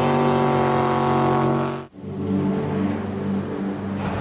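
Offshore racing catamaran's engines running at high revs, a steady many-toned drone. It cuts off abruptly about two seconds in, followed by a quieter, rougher sound.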